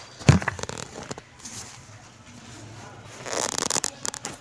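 Handling noise close to the microphone: a sharp thump with a few clicks, then about a second of rustling and scraping near the end.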